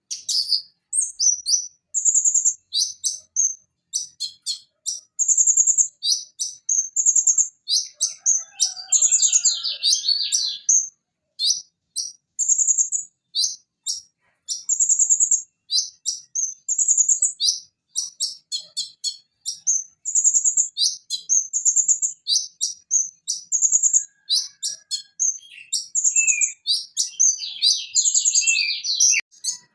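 Purple-throated sunbird singing: a rapid, unbroken run of short high-pitched chirps and sharp notes, with busier trilled passages about a third of the way in and again near the end.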